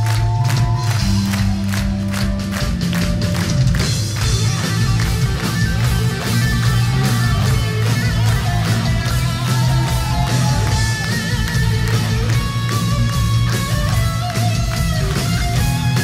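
Symphonic metal band playing live and loud: distorted electric guitar over bass and rapid, steady drums.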